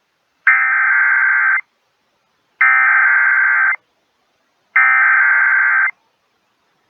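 Emergency Alert System SAME header: three identical bursts of harsh digital data tones, each about a second long with about a second of silence between them. These bursts mark the start of an alert broadcast, here a tornado warning.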